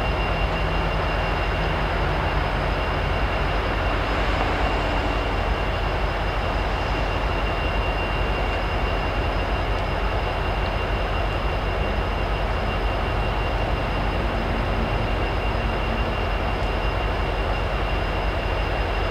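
A consist of diesel-electric freight locomotives idling while waiting to depart: a steady low rumble with a thin, constant high whine.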